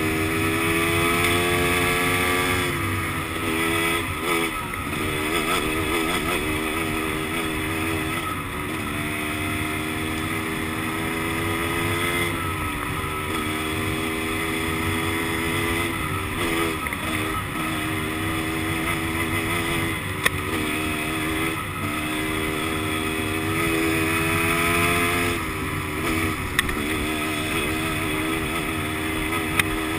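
Dirt bike engine running hard on a dirt road, its pitch rising and dropping again and again, with a steady rushing noise over it and a few sharp ticks in the second half.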